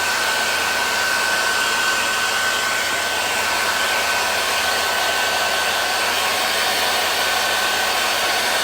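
Gaabor hair dryer running steadily: a rush of air with a steady high whine from its motor.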